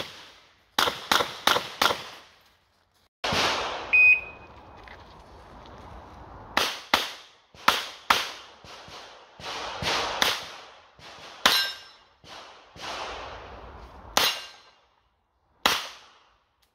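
Smith & Wesson 929 revolver firing 9x19 mm rounds, shots coming in quick strings of two to four with short gaps between.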